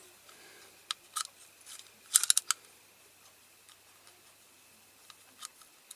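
A few light clicks and taps of a small hand tool against a diecast metal model: single clicks about a second in, a quick run of several a little past two seconds, and a faint one near the end.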